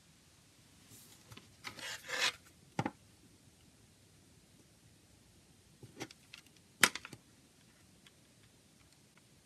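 Plastic CD jewel case being handled on a table: a scraping slide about a second in, a knock just before three seconds, then a few light clicks and a sharp tap near seven seconds as it is turned over.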